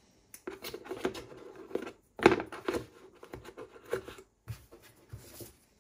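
Cardboard and paper packaging being handled: irregular rustles, taps and clicks, the loudest about two seconds in.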